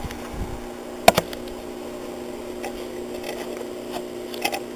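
Small clicks and taps of hands and tools handling the handlebar controls: a sharp click about a second in, a second just after it, and a few fainter ones near the end, over a steady background hum.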